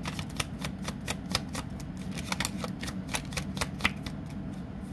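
A deck of tarot cards handled and dealt out by hand: a quick, irregular run of crisp card snaps and flicks.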